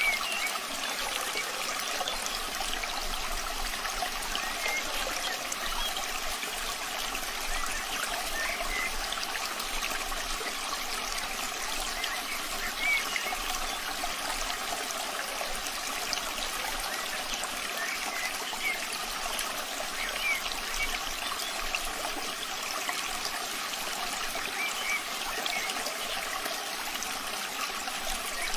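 Steady rain with trickling, running water, an even hiss with a few brief high blips scattered through it.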